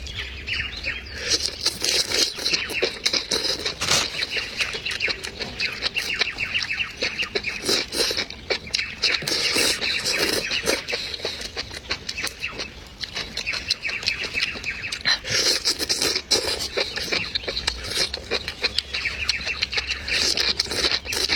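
Close-miked eating: a dense run of wet smacks, clicks and slurps as red-oil enoki mushrooms are chewed, never pausing.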